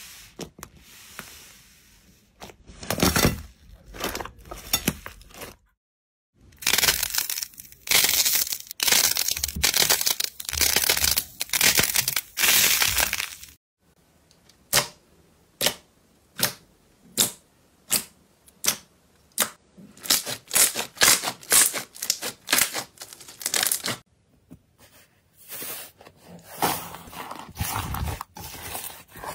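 Slime being squeezed and poked by hand: dense crunchy crackling in bursts, then a run of sharp pops about two a second, then more crackling. Brief silent gaps separate the passages.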